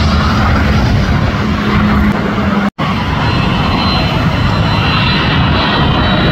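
Jet airliner engines on final approach passing low overhead: a loud, steady rush with a low hum, first from a Boeing 737. The sound drops out for an instant about three seconds in, then another landing jet carries on, with a faint high whine coming in.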